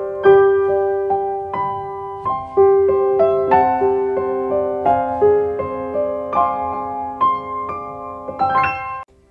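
Background piano music: a gentle melody of single struck notes and chords, each note dying away. It breaks off briefly near the end.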